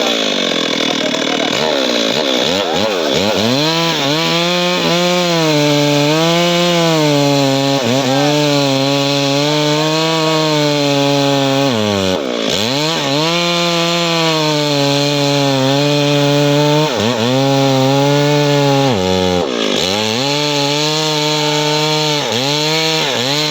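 Stihl MS 382 two-stroke chainsaw running at high revs while cutting teak wood. The engine note dips sharply and climbs back several times as the revs fall and recover under the load of the cut.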